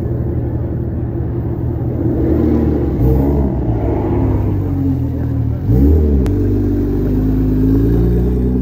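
Sports car engine revving hard and accelerating, its pitch dipping and climbing again twice, about three and six seconds in. It cuts off abruptly at the end.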